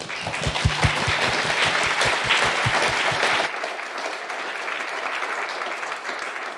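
Audience applauding, strongest for the first three seconds or so and then carrying on a little softer.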